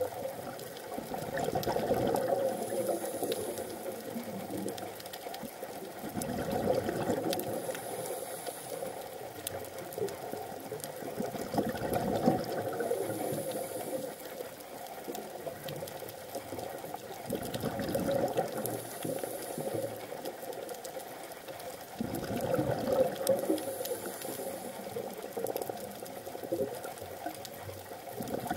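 A scuba diver's regulator breathing underwater: a bubbly, gurgling rush of exhaled bubbles swells and fades about every five and a half seconds, five breaths in all, with a faint hiss between them.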